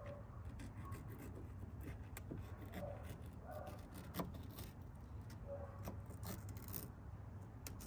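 Knife trimming around speaker adapter plates in a car door: faint, scattered scrapes and small clicks of the blade cutting.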